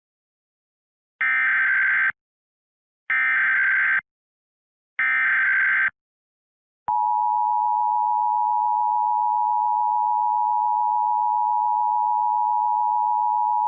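Emergency Alert System signal opening an AMBER Alert: three separate bursts of about a second each of SAME header data tones, then, about seven seconds in, the loud, steady two-tone EAS attention signal.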